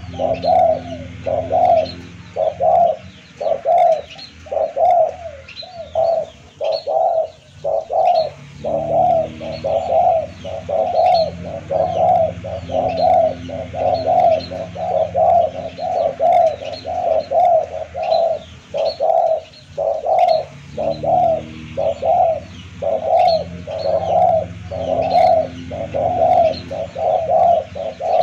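Spotted dove (tekukur) cooing over and over in short phrases of a few coos each, with barely a break between phrases. Faint high chirps sound behind it.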